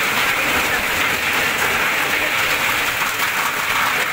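Heavy rain pouring onto a flooded street, a steady dense hiss of drops splashing into standing water.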